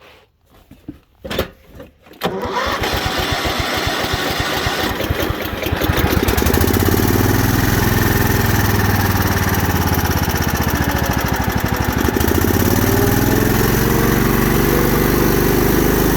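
The Cub Cadet 1517's 18 hp Kohler Command single-cylinder engine starting. After a few clicks it is cranked and catches about two seconds in, then settles into a steady run a few seconds later. Its speed dips for several seconds, then picks back up near the end.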